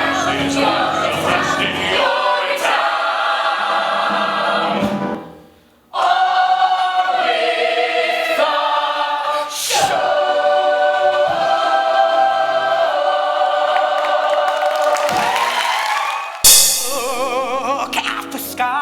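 Musical theatre ensemble singing together in chorus over accompaniment, in edited excerpts. The sound drops away almost to nothing about five seconds in, then resumes with another passage. Near the end it cuts to a sudden loud hit followed by a single voice singing with wide vibrato.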